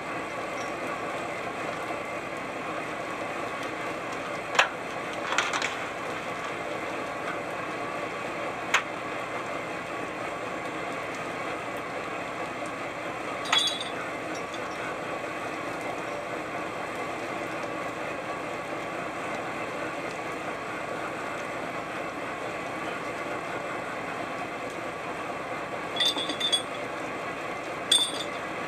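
Steady drone of a salmon seiner's engine and deck machinery, with a handful of sharp metallic clanks and knocks at scattered moments.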